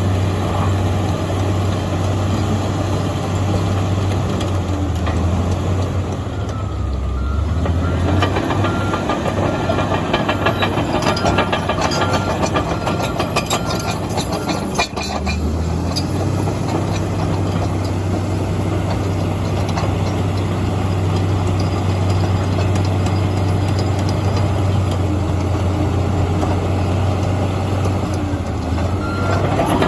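Komatsu D85EX bulldozer's diesel engine running steadily with a low hum. The engine note dips and shifts about seven seconds in and briefly drops again near fifteen seconds. A run of rapid clanks sounds over the middle stretch, typical of a crawler dozer's steel tracks.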